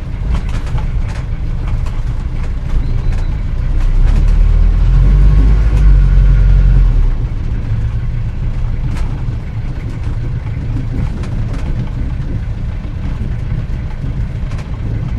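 An old car from around 1940 being driven, its engine running with a low rumble that swells from about four seconds in and eases off around seven seconds. Light clicks and rattles are scattered throughout.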